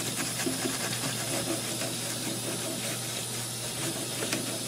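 Wet paintbrush scrubbing a soapy motherboard in a stainless steel sink: a steady wet hiss with many small strokes of the bristles.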